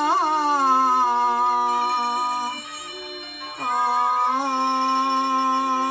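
Cantonese opera singing in pinghou style: a long drawn-out melismatic note that bends in pitch near the start, softens briefly about two and a half seconds in, then settles on a second long held note, over the accompaniment.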